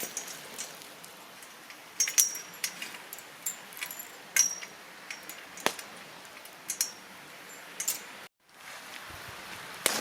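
Metal utensils clinking against metal cookware over a campfire: about half a dozen sharp, irregular clinks, several with a short high ring, over a steady low hiss. The sound cuts out abruptly for a moment near the end.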